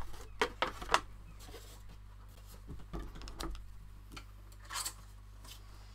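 Folded kraft cardstock rustling as it is handled, with a plastic scoring board being lifted off the work surface: a quick run of sharp taps and rustles in the first second, then a few scattered ones about three and five seconds in.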